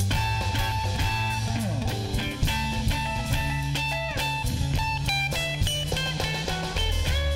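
Live rock band playing an instrumental passage: electric guitars over bass guitar and drum kit, with a guitar line of short notes, some bending in pitch.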